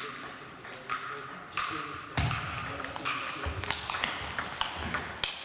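Table tennis rally: the ball clicking sharply off the bats and table about twice a second, with a heavier thump about two seconds in.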